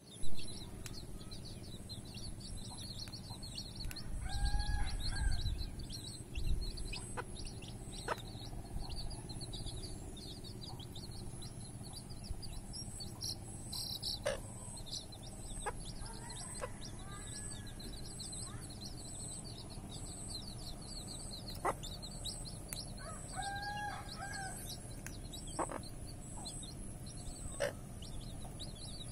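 A brood of domestic chicks peeping continuously in short high chirps, with a few short calls from the mother hen.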